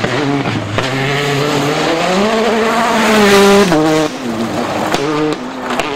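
Rally car engine at full throttle, its note climbing and holding high, then dropping sharply in quick steps a little after halfway, with another drop near the end.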